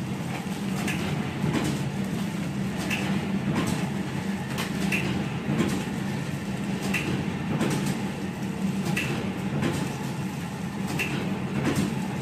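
Vertical form-fill-seal snack-pouch packing machine running: a steady motor hum with a regular clatter of clicks, repeating in a cycle about every two seconds as it seals and drops each pouch.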